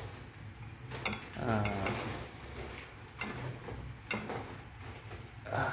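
Metal spoon stirring a thin sauce in a metal bowl, with a few sharp clinks of spoon against the bowl spread through.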